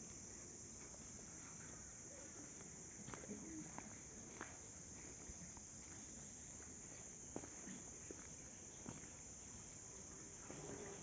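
Faint natural ambience: insects keep up a steady high-pitched drone, with scattered faint clicks and taps.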